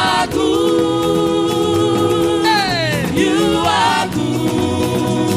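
Live gospel praise music: voices sing a long held note over the band, then slide down in pitch about halfway through and carry on in wavering vocal runs, with a steady bass beat underneath.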